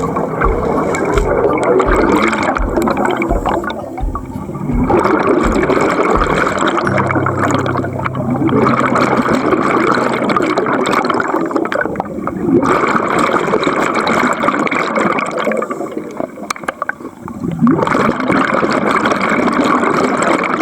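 Scuba diver's exhaled bubbles gurgling out of a regulator underwater, in long bubbling bursts with short breaks between breaths.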